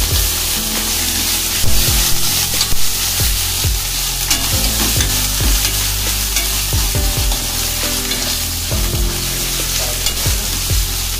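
Tomatoes, onions and curry leaves sizzling in hot oil in a nonstick pan while a steel ladle stirs them, with repeated scrapes and knocks of the ladle against the pan: the onion-tomato masala being fried.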